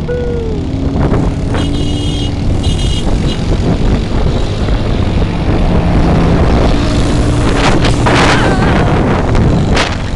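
Motorcycle engine running at road speed, with wind buffeting the microphone. Two short high beeps come about two and three seconds in, and a truck passes close alongside in the second half.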